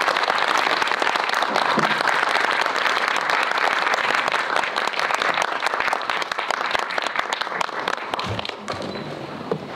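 Cinema audience applauding, a dense steady clapping that thins out and dies down over the last few seconds.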